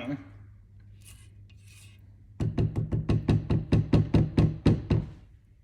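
A spoon stirring the Alfredo sauce in the pot, scraping the pan in a quick, even run of about five strokes a second. The strokes start a couple of seconds in and stop near the end.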